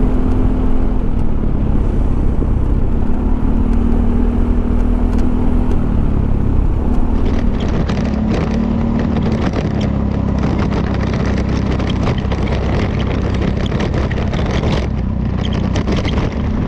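Honda ADV350 scooter's single-cylinder engine running steadily at cruising speed, heard from the rider's position with wind and road noise. About halfway through, the noise turns rougher and crackly.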